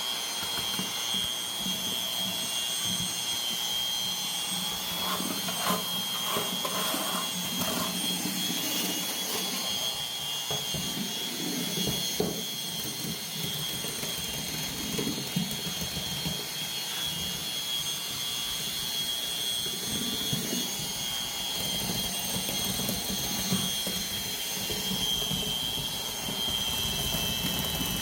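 A machine running steadily with a high-pitched whine over a noisy rumble, with a few scattered knocks.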